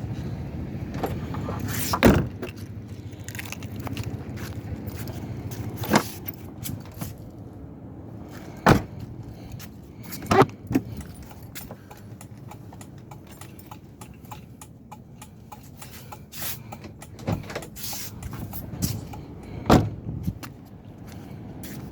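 1981 Toyota Corolla DX's carburetted engine idling steadily, with sharp clicks and knocks every few seconds.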